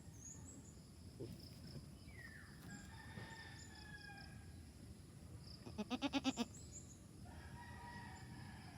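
Faint rooster crowing twice, and about six seconds in a goat's short wavering bleat of quick pulses, the loudest sound.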